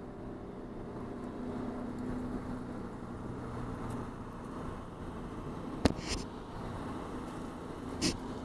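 Race car engine running at a steady speed, with no revving, and a few sharp clicks or knocks about six and eight seconds in.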